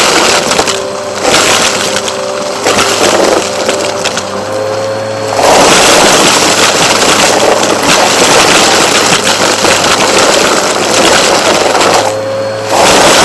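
Vacuum cleaner running, its steady rush carrying a whine at first. About five seconds in it turns into a fuller, louder rush, and the whine returns briefly near the end.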